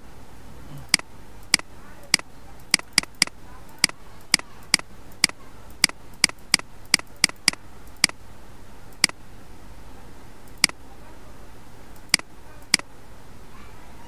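Computer mouse button clicking about twenty times, each a single short, sharp click. The pace is irregular: quickest in the middle, at two or three a second, then a few widely spaced clicks near the end. A faint low hum lies underneath.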